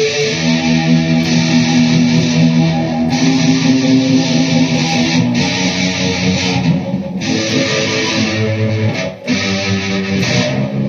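Electric guitar played through a Peavey Vypyr X2 amplifier, holding sustained notes and chords, with a short break about nine seconds in.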